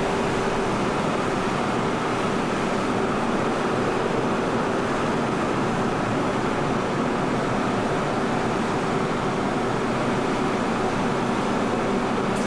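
Steady machinery drone aboard a car ferry, from its engines and ventilation: an even, unchanging noise with a faint steady hum in it.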